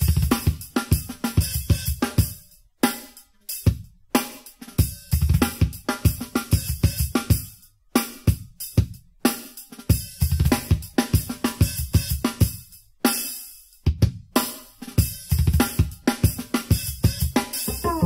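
Drum kit played in fast, busy phrases: snare, hi-hat, cymbals and bass drum, broken by a few short pauses. Played back through an Edifier D32 speaker as a sound test.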